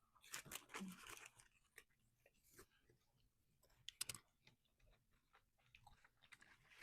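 Faint chewing and mouth sounds of someone eating a chicken snack wrap: scattered soft clicks and small crunches, with a slightly louder one about four seconds in.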